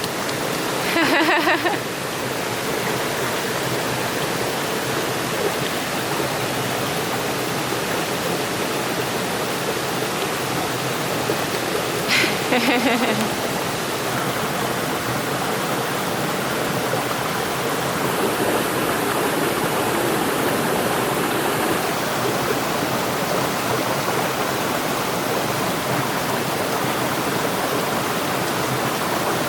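Water of a forest stream rushing steadily, an even unbroken rush. A short voice sound cuts in twice, about a second in and again about twelve seconds in.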